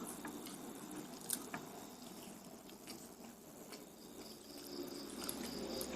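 A person softly chewing Indonesian fried snacks (gorengan), with scattered small mouth clicks.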